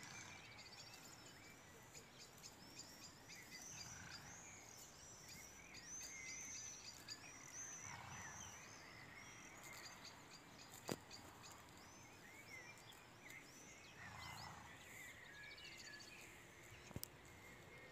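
Faint outdoor birdsong: many small birds chirping, with quick, repeated high arched notes. A sharp click about halfway through and another near the end stand out above it.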